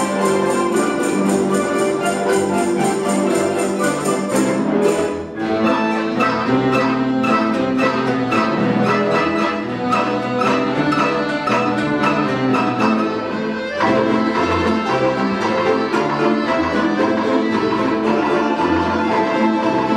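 An ensemble of Russian folk instruments playing a fast, rhythmic dance tune, full of quick plucked and tremolo notes. The music breaks off briefly about five seconds in, then resumes, and a new, denser section comes in with a sharp accent near fourteen seconds.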